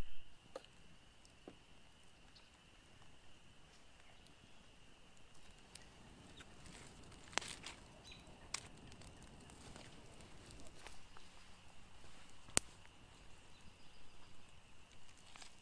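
Wood campfire crackling faintly, with a few sharp pops, the loudest about three-quarters of the way through, over a faint steady high tone.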